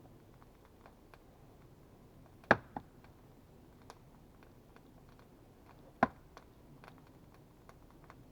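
Two sharp knocks about three and a half seconds apart, the first followed quickly by a softer one, over faint scattered clicks and crackles.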